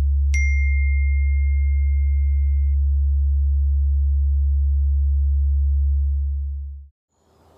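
A loud, steady, very deep electronic hum, with a single high ping about a third of a second in that rings on for about two seconds. The hum fades out shortly before the end.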